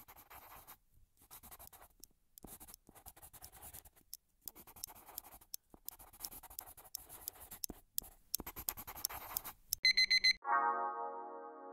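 Pen scratching across notebook paper in bursts of writing with short pauses. A little before the end comes a quick run of loud, high electronic alarm beeps, then a held synthesizer chord sets in and slowly fades.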